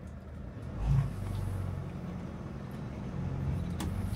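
Car engine running at low speed with road noise, and a short thump about a second in.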